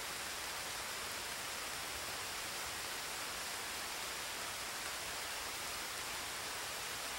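A steady, even hiss of noise that does not change.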